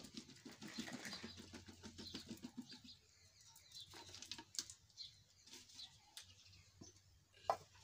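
Salted badhar pieces sliding and tumbling out of a plastic jar into a steel kadhai, a soft patter of small wet knocks for about three seconds, then a sharp tap near the end. Birds call faintly in the background.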